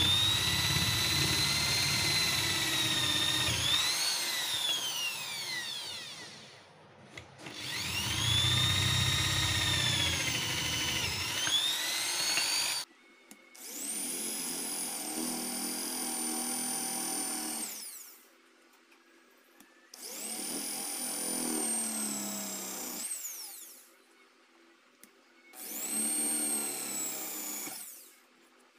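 Corded electric drill boring holes into teak wood, run in five separate bursts. Each burst winds up to a high motor whine and winds down again when the trigger is released, with short pauses between.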